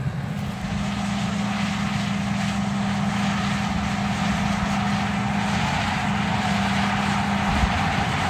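New Holland T9.670 HD tractor's diesel engine running steadily while pulling a Bourgault air drill in the field, a constant drone with a steady hum that settles in about half a second in.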